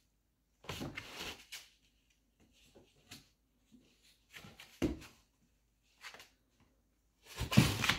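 A husky puppy rummaging in a cardboard box: scattered scrapes and rustles of cardboard, a dull thump about five seconds in, and a louder scuffle near the end.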